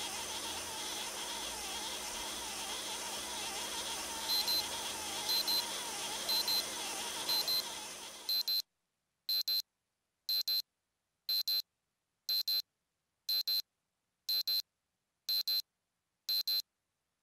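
Electronic beeping, a quick high double beep about once a second, like a digital alarm. For the first half it sits over a steady hiss, which cuts out about halfway through, leaving the beeps alone.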